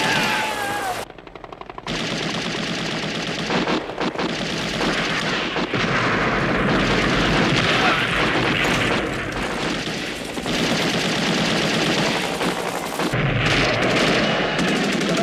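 M60 machine guns firing long bursts amid dense battle gunfire, with a brief lull about a second in.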